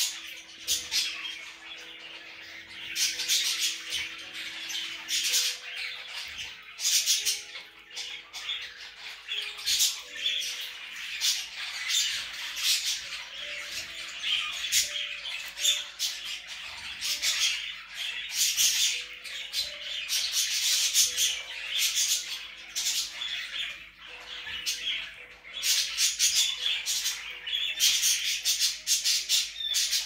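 Cockatiel squawking in repeated short, harsh bursts.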